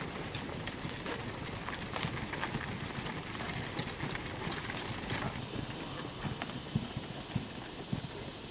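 Hooves of a group of feeder calves walking and shuffling on packed dirt: many irregular clops and knocks. About five seconds in, a steady high buzz joins.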